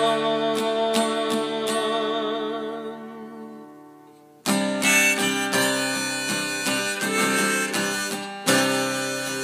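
Harmonica in a neck rack and strummed acoustic guitar playing an instrumental break. A held, wavering harmonica chord over ringing guitar fades away over the first four seconds. Strumming and harmonica then come back in sharply about four and a half seconds in.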